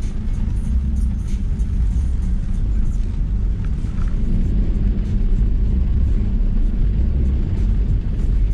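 Range Rover Sport driving over a flooded, muddy track, heard from inside the cabin as a low, steady rumble of engine and tyres.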